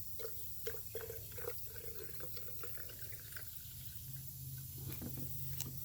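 Gasoline being poured into the fuel tank of a Homelite 3514 chainsaw: trickling with short gurgles, mostly in the first two seconds, and a few light clicks.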